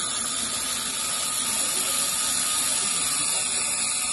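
Angle grinder's cut-off disc cutting into the metal casing of an air compressor: a steady, high-pitched grinding hiss.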